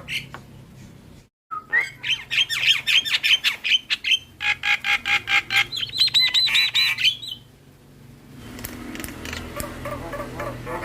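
Javan myna (jalak kebo) singing: a fast run of loud, repeated harsh notes starting about a second and a half in and lasting some six seconds, then quieter, varied chattering from about eight seconds on.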